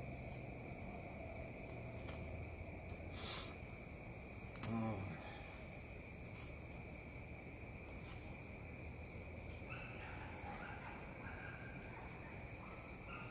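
Steady high trilling of night insects, with a few faint scrapes of a fillet knife working through a fish on a plastic cutting board. A short low murmur of a man's voice comes about five seconds in.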